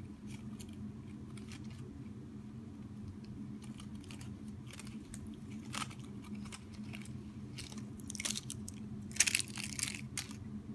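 Siamese cat biting and chewing at a crinkly plastic wrapper: scattered crunches and clicks, with a louder burst of crinkling and crunching about eight to ten seconds in, over a steady low hum.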